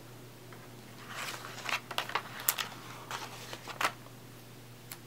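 Cellophane-wrapped sheets of alphabet stickers rustling and crinkling as they are handled, a run of crackly rustles and small sharp snaps between about one and four seconds in.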